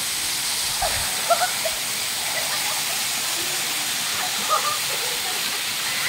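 Waterfall pouring down a rock face: a steady, even rush and hiss of falling water.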